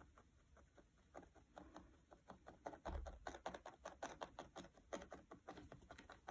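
Felting needle repeatedly stabbing through wool fibres and a felt backing into a foam pad: faint, quick pokes, sparse at first and then a few a second from a couple of seconds in.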